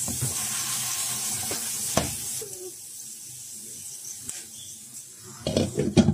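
Oil sizzling around popcorn kernels in a pan, with a steady hiss that drops away about two seconds in. Near the end, a glass pan lid clatters down onto the pan in several quick knocks.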